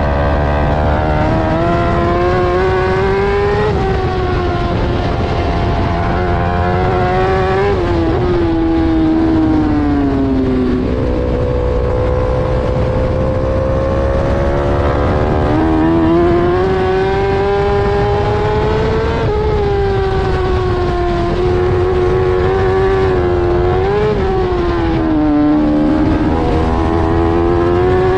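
BMW S1000RR superbike's inline-four engine heard onboard at racing speed, revs falling under braking and climbing again out of the corners. The engine pitch jumps up sharply about eleven seconds in at a downshift into third, and climbs hard again near the end under full acceleration.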